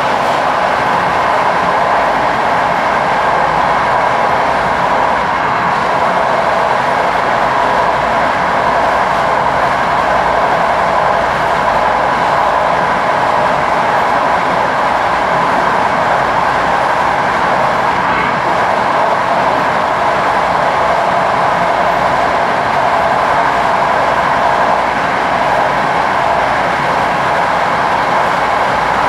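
Train in motion, giving a steady, unbroken running noise.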